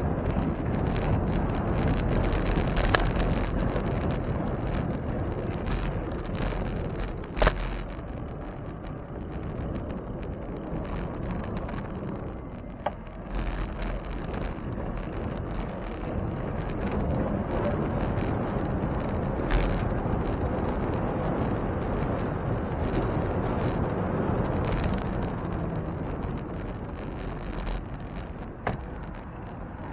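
Wind buffeting the microphone of a camera riding on a moving bicycle, a steady rumbling rush, with about five sharp knocks spread through it.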